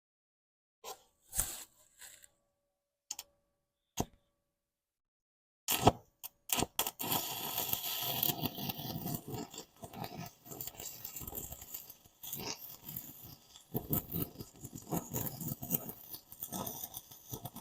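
Arc welding on cast iron: the arc crackles and spits steadily while a filler bead is laid. It starts about six seconds in, after a few short clicks.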